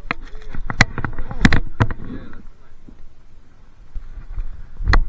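Close handling noise from a fishing landing net and line being worked by hand: rustling, with a few sharp knocks about a second in and another near the end.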